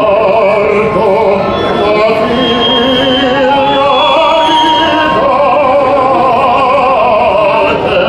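A man singing opera in full operatic voice, with wide vibrato on long held notes.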